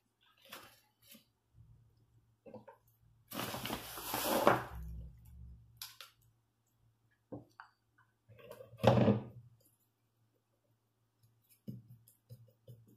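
Kitchen handling noise while flour is scooped and sifted through a mesh sieve into a glass bowl: scattered light clicks and knocks, a longer rustling scrape a little over three seconds in, and a louder thump with rustle near nine seconds. A faint steady low hum runs underneath.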